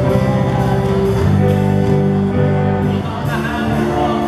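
Gospel choir singing with a live band, held low notes and chords under the voices and a steady beat about twice a second.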